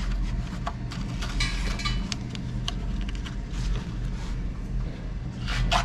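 Light metallic clinks, clicks and a brief scrape of steel frame parts being handled and shifted during a test fit, over a steady low hum.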